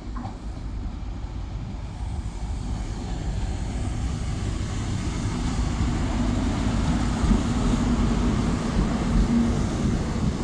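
CrossCountry Class 43 HST diesel power car, MTU-engined, passing close by with its coaches, the engine note and wheel-on-rail noise growing steadily louder. The engine tone is strongest about six seconds in as the power car goes past, and the noise of the coaches' wheels follows.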